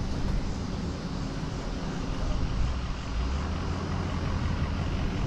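A car driving, heard through a microphone mounted on its outside: a steady rumble of tyre and road noise with wind buffeting the microphone.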